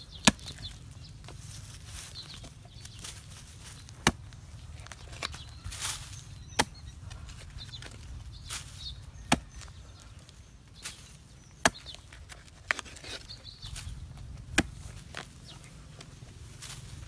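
A long-handled digging tool with a metal blade chopping into dry, stony earth: about eight sharp strikes, one to three seconds apart, with softer scraping of loosened soil between them.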